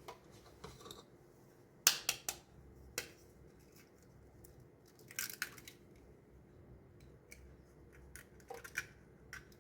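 Kitchen handling sounds: short clicks, snips and taps of utensils and containers in a few scattered clusters.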